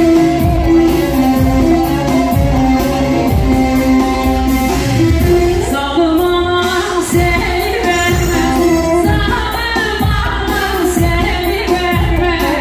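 Amplified Turkish dance music for a halay circle dance: a singer over a steady, heavy drum beat, with a held melody line from the band.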